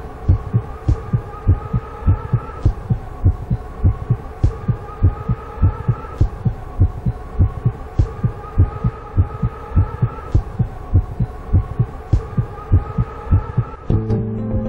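Deep, regular thumping like a heartbeat, several beats a second, under a wavering tone that rises and falls every couple of seconds. Near the end it gives way to guitar music.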